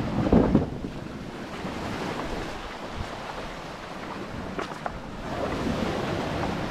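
Surf breaking and washing back over a cobble beach, loudest in the first half-second and swelling again near the end, with wind buffeting the microphone. A couple of sharp clicks come about four and a half seconds in.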